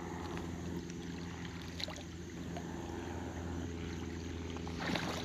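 A steady low hum with a faint wash of water, with a slight swell of water noise near the end.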